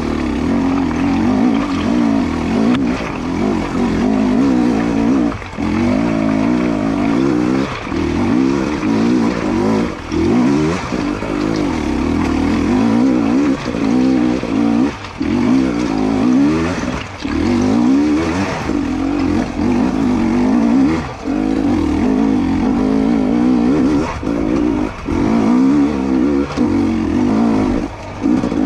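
2022 GASGAS EC250 two-stroke dirt bike engine revving up and down under constant throttle work, with short cuts in the throttle every second or two.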